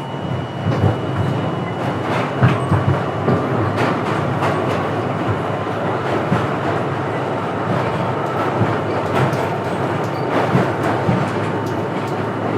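Subway train running on rails: a steady rumble with irregular clicks and clatter from the wheels.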